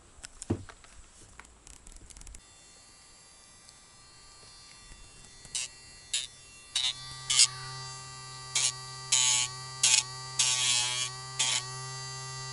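Electric pet nail grinder running with a steady, evenly pitched motor hum after a few clicks of handling at the start. Its rotating bit meets a dog's claws in about ten short grinding bursts, the hum wavering slightly in pitch during each contact.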